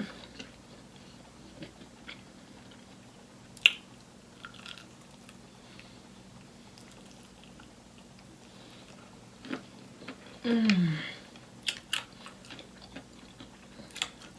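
A person chewing and biting fried chicken close to the microphone, with sharp wet mouth clicks now and then. About ten and a half seconds in comes a short vocal hum that falls in pitch.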